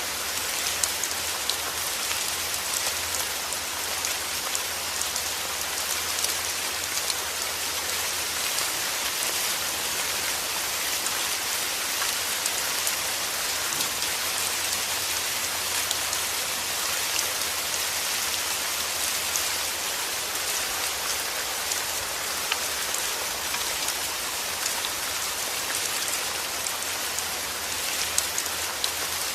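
Heavy rain falling steadily: an even hiss with many individual drops ticking through it.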